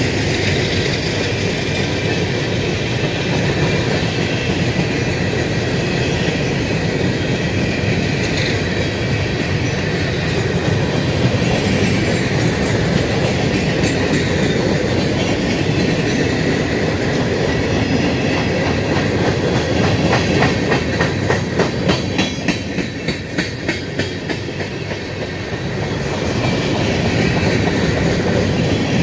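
Freight train of steel hopper cars rolling past close by: a steady rumble and clatter of wheels on rail. About two-thirds of the way through there is a quick run of sharp clacks, two or three a second.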